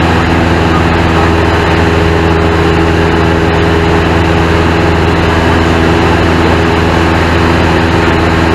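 Single-engine piston training airplane's engine and propeller heard from inside the cockpit in flight: a loud, steady drone that holds one pitch throughout, over a rush of air noise.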